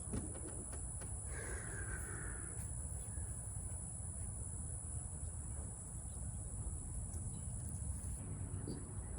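Outdoor ambience: a steady high insect drone over a low rumble, with one harsh bird call about a second and a half in.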